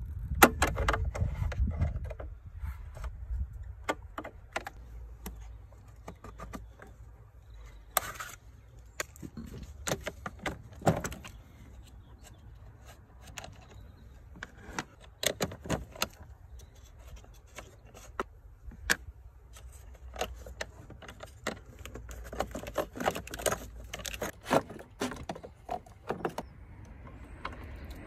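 Quick, irregular metallic clicks, taps and rattles of hands and pliers working among car wiring, battery leads and a plastic ECU cover, played back sped up. A low rumble runs underneath and is strongest in the first two seconds.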